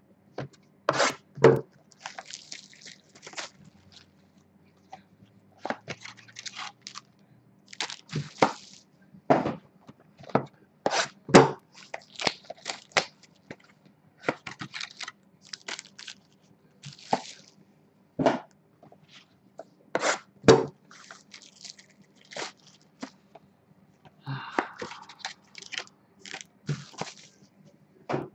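Small cardboard trading-card boxes knocked and set down on a table, a string of irregular sharp taps and clacks, with crinkling of the boxes' plastic wrap between them.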